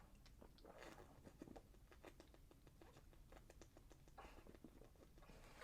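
Near silence, with faint scattered ticks and a few soft hisses.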